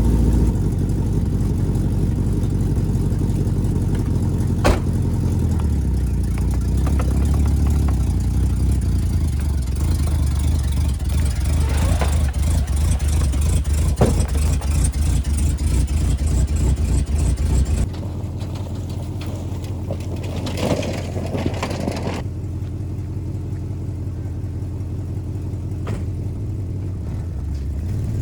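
Chevrolet Silverado's 6.0-litre LS V8 running with a steady low rumble, freshly restarted after running out of fuel. A few sharp knocks sound over it, and about two-thirds of the way through the engine sound drops to a quieter, lighter run.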